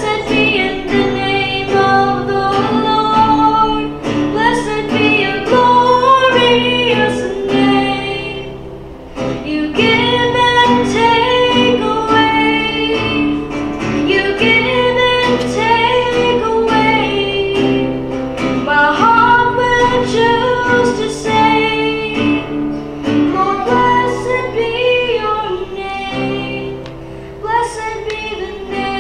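A young boy singing a song, accompanying himself on a nylon-string classical guitar.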